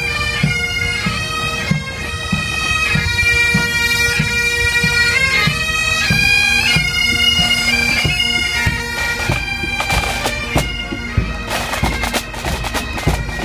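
Pipe band of Great Highland bagpipes playing a march, the drones holding a steady tone under the chanter melody, with a drum keeping a steady beat. About ten seconds in the pipes grow fainter as the band moves past, and crowd noise and knocks come up.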